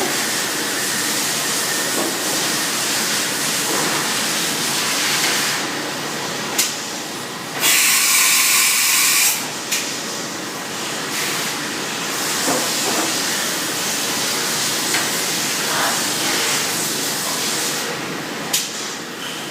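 Matsuura MC510VG vertical machining centre at work, with a steady hiss throughout. It gets louder for a couple of seconds about eight seconds in, and there are a few short clicks.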